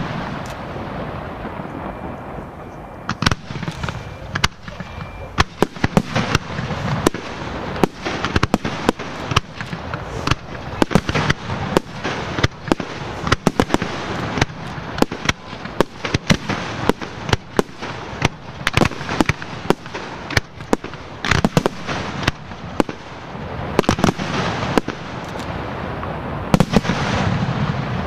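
Fireworks display: aerial shells bursting in quick, irregular succession, a dense run of sharp bangs, often several a second, over a steady crackling hiss. The bangs thin out briefly a few seconds in, then come thick again.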